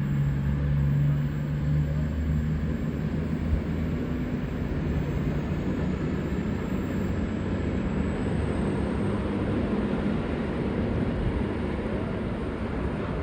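V/Line VLocity diesel multiple unit's engines running with a steady low drone, a faint high whine rising in pitch about halfway through.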